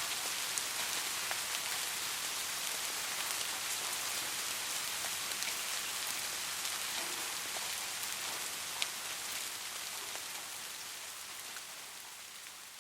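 Soft rain falling steadily, a hiss of dense rainfall with scattered individual drop ticks, fading out over the last few seconds.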